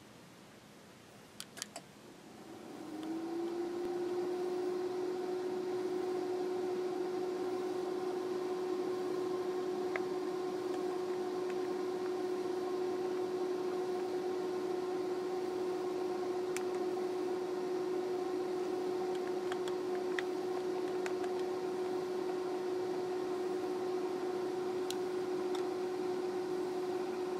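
MTH Protosound 2 sound system in an LGB Mars Flyer G-scale locomotive powering up. A few soft clicks come first. About two and a half seconds in, a steady pitched electric hum fades in, glides up briefly, then holds level while the locomotive idles in place.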